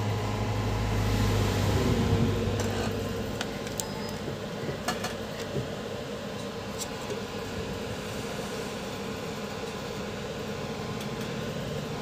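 Steady electrical hum from a powered-up DJ power amplifier on the bench, a low drone with several overtones, with a low rumble in the first two seconds and a few light clicks after it.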